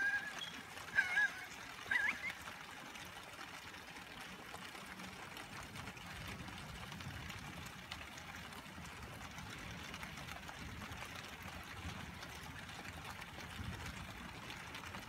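Steady rain with water trickling and pouring, as from runoff during a thunderstorm. Three short squeaky chirps come in the first two seconds, and a low rumble builds from about six seconds in.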